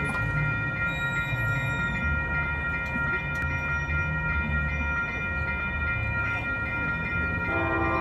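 Railroad crossing bell ringing in quick repeated strokes as the gates come down, over a low rumble. Near the end, the approaching MBTA HSP46 diesel locomotive's air horn starts a long blast.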